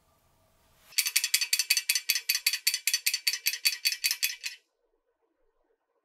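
DMM Ultra D aluminium screwgate carabiner rattling against a metal tool clipped through it as it is shaken: a fast run of sharp metal-on-metal clicks, about six a second, that starts about a second in and cuts off abruptly. This is the contact noise of a standard carabiner.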